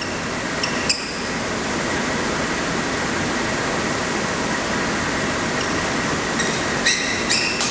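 Steady hum of a crowded sports hall during a badminton rally, with short high squeaks of court shoes and sharp racket strikes on the shuttlecock about a second in and again near the end.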